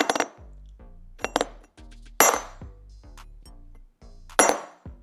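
Small SLS 3D-printed metal parts dropped onto one another, giving about four sharp, ringing metallic clinks spread through a few seconds, over quiet background music.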